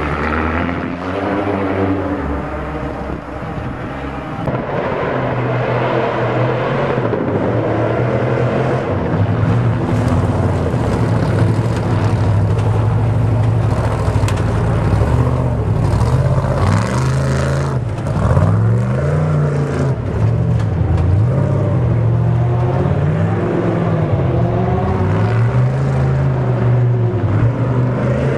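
Off-road race vehicles' engines revving hard and easing off again and again as they pick their way over boulders, first a race buggy and then a Trophy Truck's V8. The engine pitch swings up and down many times, more quickly in the second half.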